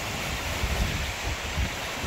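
Surf breaking and washing up a sand beach, with wind buffeting the microphone in low rumbles.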